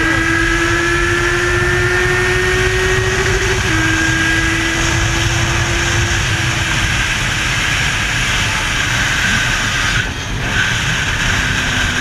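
Motorcycle engine under way amid heavy wind and road noise: its note climbs slowly, drops back about four seconds in, then holds and fades into the noise.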